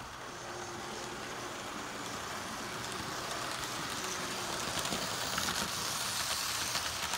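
HO/OO-scale electric model train of four Hornby Flying Scotsman locomotives running on the track: a steady running noise of motors and wheels on rails that grows louder as the train comes past, with light clicks in the second half.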